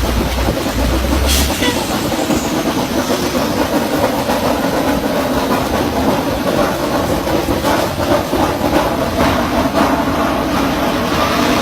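Drilling rig machinery running steadily, with a low hum that stops about a second and a half in and scattered metallic knocks from the pipe-handling work.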